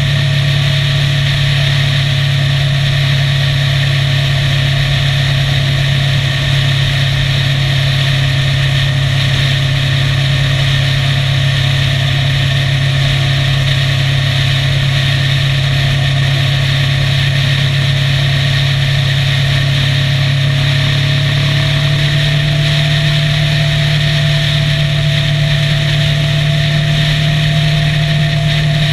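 Motorcycle engine running steadily at cruising speed, a constant drone under a rush of wind and road noise; the pitch rises slightly about twenty seconds in.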